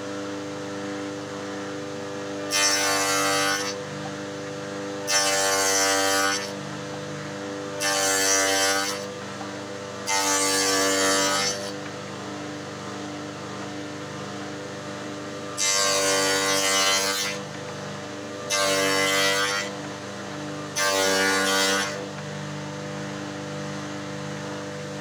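Spindle moulder (wood shaper) running with a steady hum. Its cutter cuts into wood seven times, as door-frame pieces are pushed through on a sliding jig, each cut a loud rasping burst of about a second.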